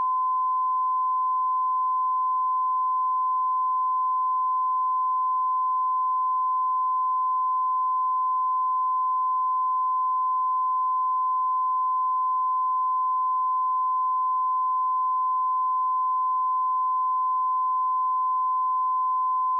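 A pure 1023 Hz sine-wave test tone, a single steady pitch just above 1 kHz, held unchanged at a constant level.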